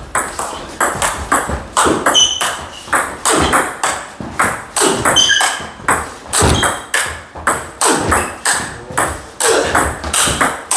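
Table tennis rally: the celluloid ball clicking off rubber bats and the table in a quick, regular patter of several hits a second, with a few short squeaks.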